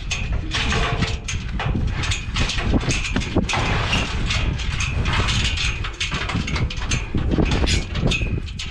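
Cow struggling against a metal pen or gate: a rapid, irregular run of knocks, clangs and hoof stamps.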